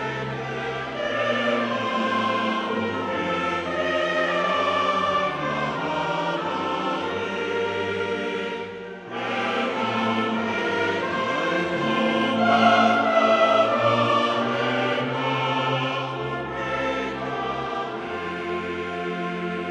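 Choral background music: a choir singing long held notes over orchestral accompaniment and a sustained bass line, dipping briefly about nine seconds in.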